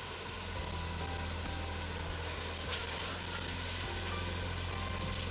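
Ground meat and green peas frying in fat and oil in a pot: a steady sizzle over a low, even hum.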